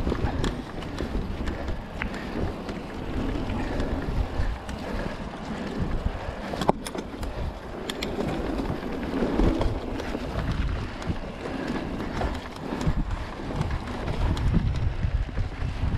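Mountain bike being ridden along a dirt trail: wind buffets the microphone over a steady rumble of tyres on the ground, with scattered sharp clicks and rattles from the bike.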